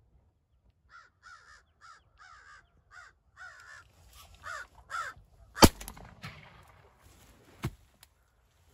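A rapid run of crow caws, about ten in four seconds, then two shotgun shots about two seconds apart, the first the louder.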